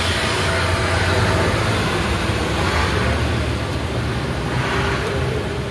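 A motor vehicle engine running steadily close by, a low rumble under a broad rush of noise that swells briefly about halfway through and again near the end.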